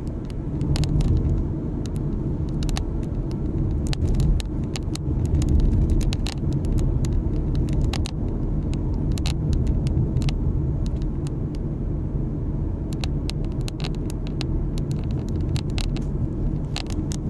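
Low rumble of road and engine noise heard inside a moving car's cabin, with scattered sharp light clicks throughout.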